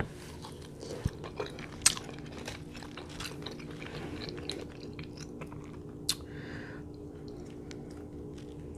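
Close-miked chewing and mouth sounds of a person eating a seafood boil of shrimp, mussels and sausage, with scattered small clicks from handling the food and mussel shells. Two sharper clicks stand out, about two seconds in and about six seconds in.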